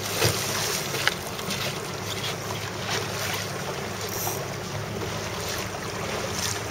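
Wind buffeting the microphone over water splashing and rushing past a boat hull, with a low steady hum underneath. A couple of sharp slaps stand out in the first second or so.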